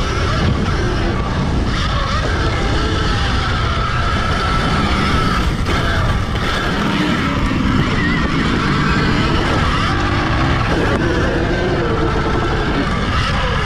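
Heavy wind rush on a helmet-mounted camera with the whine of an Alta Redshift MXR electric dirt bike's motor and drivetrain, its pitch rising and falling with speed while riding a motocross track.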